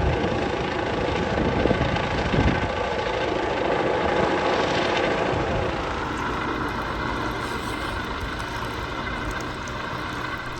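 Steam-hauled passenger train passing close by behind LNER B1 61306 Mayflower: a loud, continuous rumble that fades slowly.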